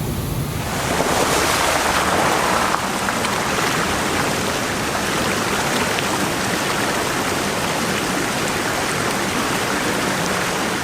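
Water rushing steadily over small cascading waterfalls, a continuous even rush that grows louder and brighter about a second in.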